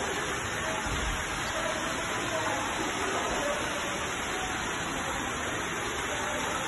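Steady, even hiss of heavy rain and running floodwater.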